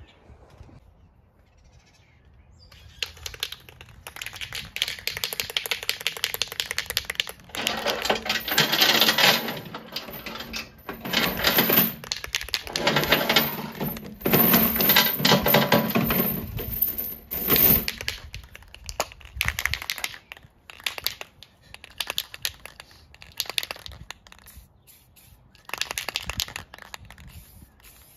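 Aerosol spray can hissing in several long sprays, each a few seconds long, then a string of short spurts and sharp clicks near the end.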